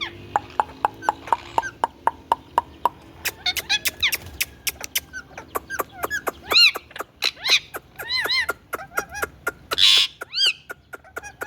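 Indian ringneck parakeet calling: a quick run of short chirps, about three a second, then several arched squawks and a harsh call about ten seconds in.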